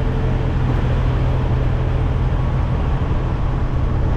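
Peterbilt 389 semi truck's diesel engine idling steadily, a low even rumble with a steady hiss over it.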